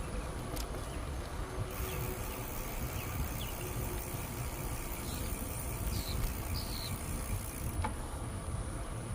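Steady low rumble of wind and tyres from a bicycle riding along a trail, with a high, steady insect drone over most of it and a few short bird chirps around six seconds in.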